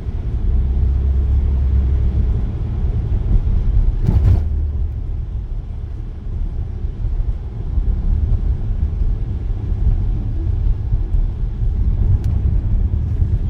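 Steady low rumble of road traffic, with a brief louder rush about four seconds in.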